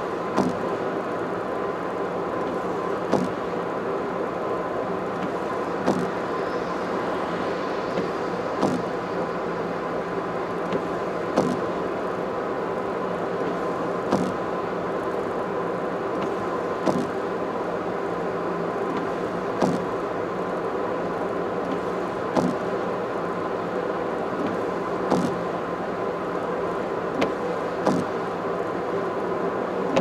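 Car driving at expressway speed, heard from inside: steady road and engine drone with a short, sharp thump about every three seconds.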